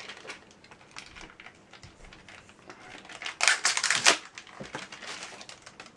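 Thin plastic bag crinkling and rustling as a USB cable is handled in it, with a louder burst of crinkling just past halfway.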